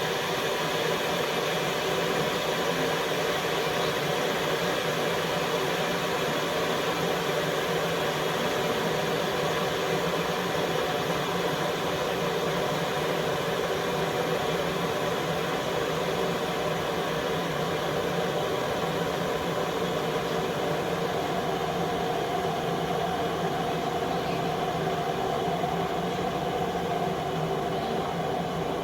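COMFEE' 1500 W stainless steel electric kettle heating water toward the boil: a steady hiss and rumble, with a humming tone that grows a little stronger in the second half.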